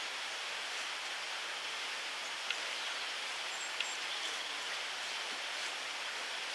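Steady outdoor woodland ambience: an even hiss, with two faint ticks in the middle and a brief, faint high chirp.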